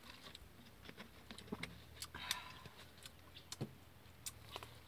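Faint sounds of two people eating with their hands: scattered small clicks and smacks of fingers in food and chewing. A faint low hum sets in about a second in.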